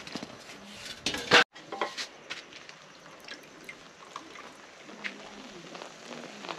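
A sharp knock and clatter about a second in, then a pot of chopped greens boiling hard uncovered, with small scattered bubbling pops and drips.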